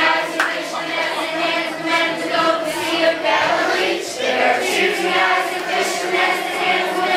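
A large group of children and adults singing a song together.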